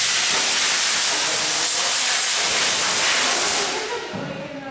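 Loud steady hiss of compressed air at the pneumatic scissor lift under the car, dying away about four seconds in.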